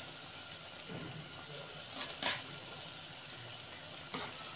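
Pakoras deep-frying in hot ghee: a quiet, steady sizzle, with a metal spatula knocking against the aluminium pot twice, about two seconds in and near the end.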